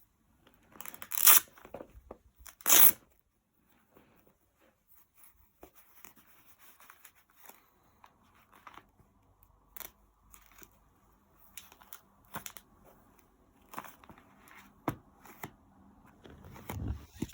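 Two short, loud ripping sounds about a second and a half apart while goalkeeper gloves are unboxed, followed by faint rustling and light clicks of handling.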